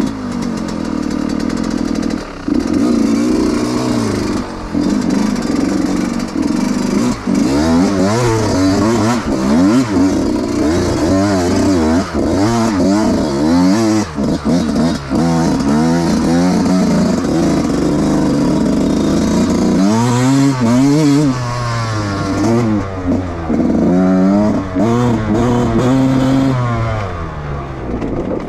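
Yamaha YZ125X two-stroke single-cylinder dirt bike engine being ridden on a trail. It runs fairly evenly for the first few seconds, then the throttle is opened and closed over and over, so the pitch climbs and falls many times.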